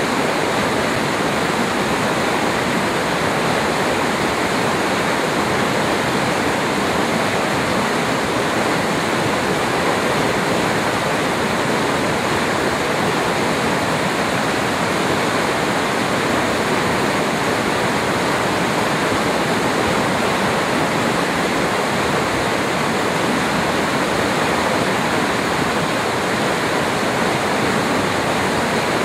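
Uracher Wasserfall in flood, a huge mass of water plunging over the falls after days of continuous rain: a loud, steady rush of water.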